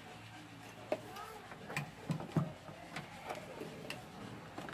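Scattered clicks and a few knocks from a CRT television's circuit board being handled and moved about on a wooden workbench, the loudest two knocks about two seconds in.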